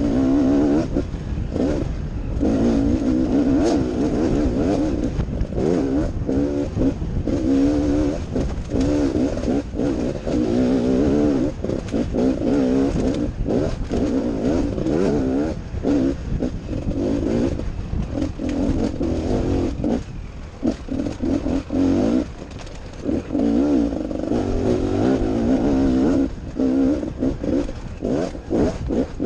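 Enduro dirt bike engine ridden hard over a rough forest trail, its pitch rising and falling over and over as the throttle is opened and shut through the gears, easing off for a couple of seconds past the middle. Under it a low rumble of wind on the onboard microphone and rattling clatter from the bumps.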